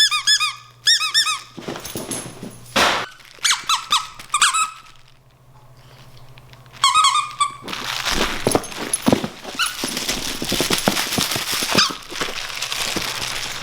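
Squeaky fish toy for a dog squeaking in several short bursts, each a quick rising-and-falling squeal, over the first half. After that comes a long stretch of crinkling and rustling.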